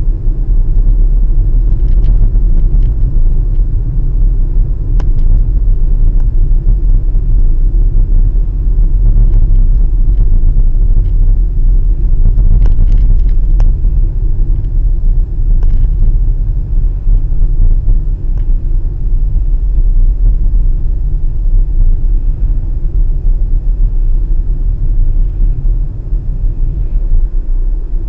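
Steady low rumble of a moving car heard from inside the cabin, engine and tyre noise picked up by a windshield dashcam, with a few faint ticks scattered through it.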